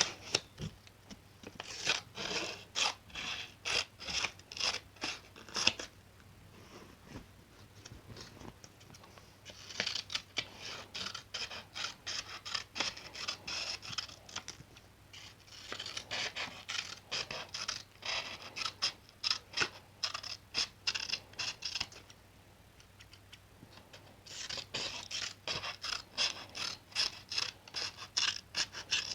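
Scissors snipping repeatedly, about three crisp snips a second. The snips come in four runs of several seconds, with short pauses between the runs.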